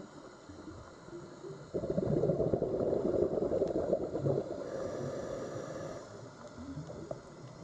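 Underwater, a scuba diver's exhaled breath bubbles out of the regulator: a sudden burst of gurgling about two seconds in that holds for a couple of seconds and then fades out.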